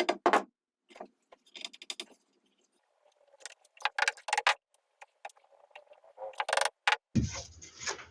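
Intermittent rattling and clicking of objects being handled, in several short clusters, followed near the end by a denser, noisier stretch.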